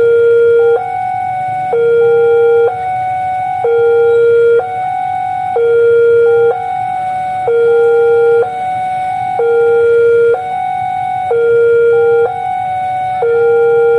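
Railway level-crossing warning alarm sounding while a train approaches. It repeats a loud two-note electronic tone, a lower note then a higher one, about one cycle every two seconds.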